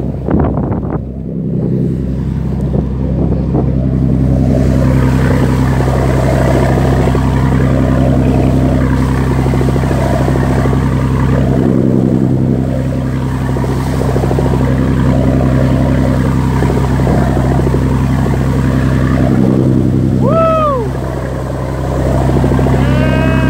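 A boat's engine running steadily with a constant low hum, over the rush of water churning along the hull and in the wake. A short pitched call rises and falls about twenty seconds in.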